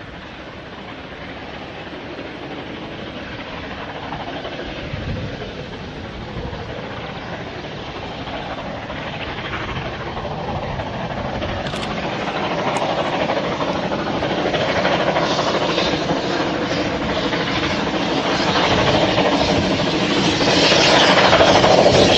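Two narrow-gauge steam locomotives, Palmerston and Taliesin, working a passenger train as it approaches. The exhaust and the wheels on the rails grow steadily louder as the train draws near.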